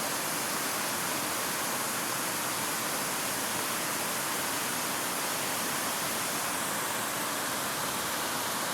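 River water pouring over a drop, a steady, unbroken rushing.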